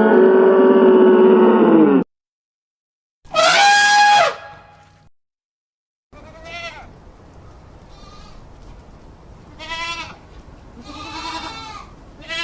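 Goats bleating: a loud, drawn-out call lasting about two seconds, a second loud call a little after three seconds in, then a run of quieter, quavering bleats. The segments start and stop abruptly, as separate clips spliced together.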